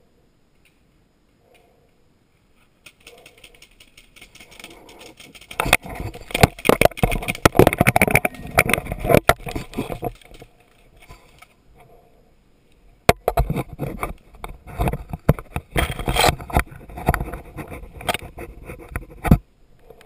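Close rustling, scraping and clattering of a paintball player's gear and the surrounding brush against a helmet-mounted camera, in two long loud stretches with a few sharp cracks. The sound cuts off abruptly near the end.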